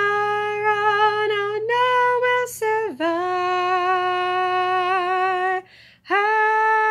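A woman singing long held notes with a slight waver in pitch, breaking off briefly near the end before starting the next note.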